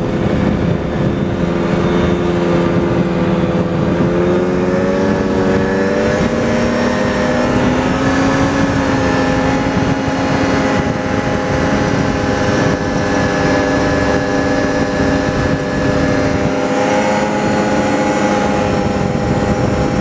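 Snowmobile engine running under way, its pitch rising over a few seconds as it speeds up, then holding steady at cruising speed with a brief dip near the end.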